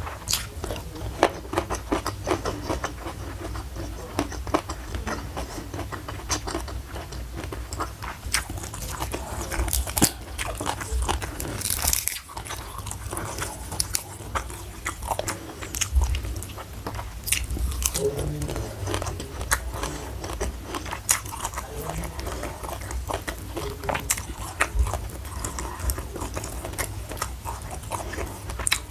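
Close-miked chewing and biting of food, with crunching and wet mouth clicks going on throughout.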